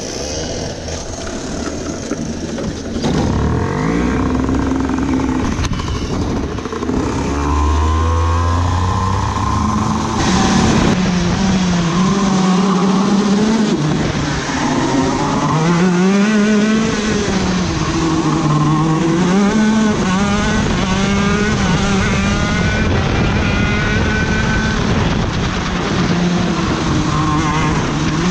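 Racing kart engine heard onboard. It pulls away about three seconds in, then revs up and down through the corners, its pitch rising and falling again and again.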